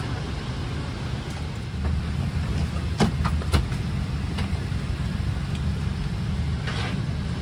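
Steady low hum of a parked Boeing 777-300ER's cabin air conditioning during boarding, with the engines not yet started. Two sharp clicks come about three seconds in, and a brief rustle near the end.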